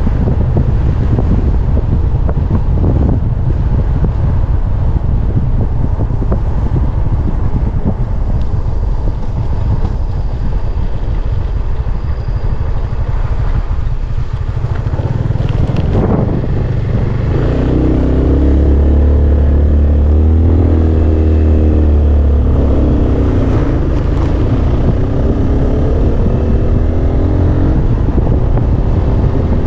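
Wind buffeting the microphone on a moving motor scooter, over the scooter's engine. A single knock comes about halfway, and in the second half the engine note rises and falls in pitch as the scooter picks up speed.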